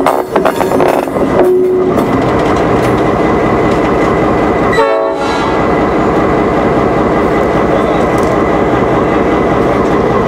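EMD GP38-3 diesel-electric locomotive running at low speed, its 16-cylinder EMD 645 diesel loud and steady, with the wheels rolling on the rails.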